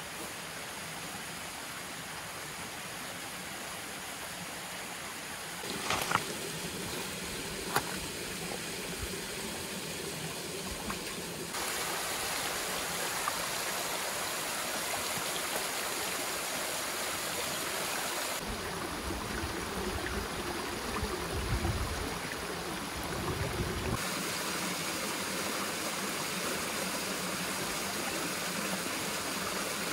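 Small waterfall and creek water splashing over rock ledges: a steady rush that changes in loudness and tone several times. Two brief clicks about six and eight seconds in.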